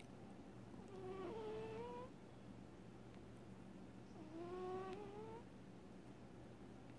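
Sleeping cat snoring: two pitched snores about a second long each, about three seconds apart, each rising slightly in pitch, over a faint steady hum.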